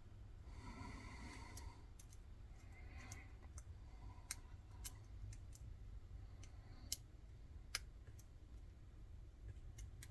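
Faint scattered clicks of a lock pick and tension wrench working the pins of a six-pin Weiser pin-tumbler lock during single-pin picking.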